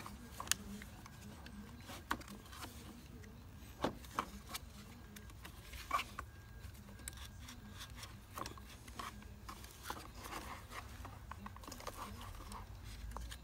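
Scattered light clicks, scrapes and rubbing as hands twist and pull at the plastic pulley on the motor assembly of a Bosch Rotak lawnmower, working it off the motor shaft.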